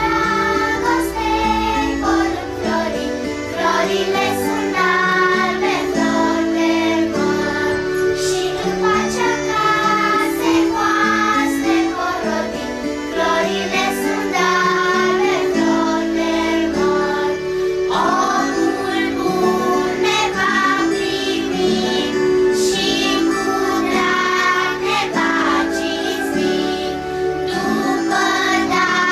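Children's choir singing a Romanian Christmas carol (colindă).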